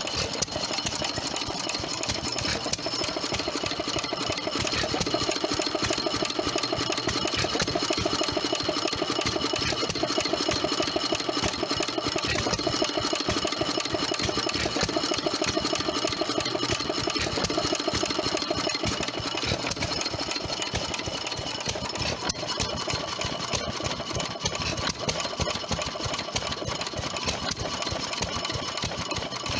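Fairbanks-Morse Z 'headless' stationary engine running with a steady, rapid, even clatter.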